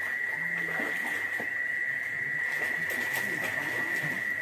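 A steady high tone held at one unchanging pitch, over faint murmured voices and a few light knocks.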